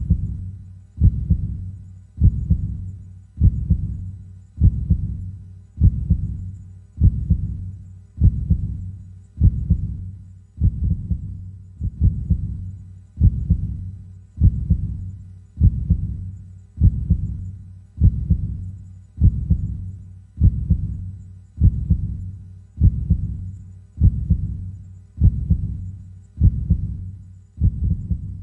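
Heartbeat: a steady, even rhythm of low thuds, about one every 1.2 seconds (around 50 beats a minute), each dying away quickly before the next.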